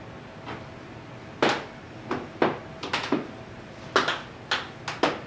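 About ten sharp clicks and knocks at irregular intervals, over the faint steady whir of the Jetson TK1 board's small cooling fan.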